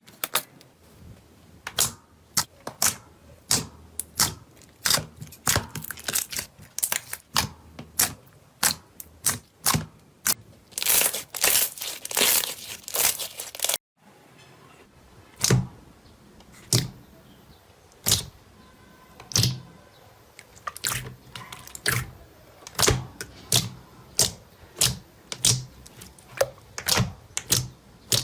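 Slime being squeezed and pressed by hand, giving a rapid series of sharp clicking pops, with a burst of denser crackling just before a cut halfway through.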